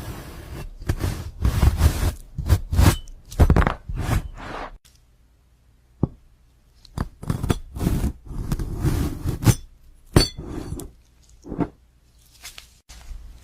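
Glass-like objects being cut: a run of short, crisp crunching and scraping cuts, with a pause of about a second about a third of the way in, then more cuts.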